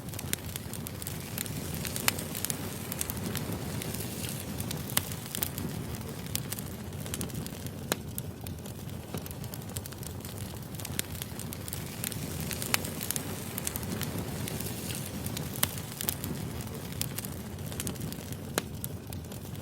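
Burning firewood crackling: a steady low rush of flame with irregular sharp pops and snaps, a few much louder than the rest.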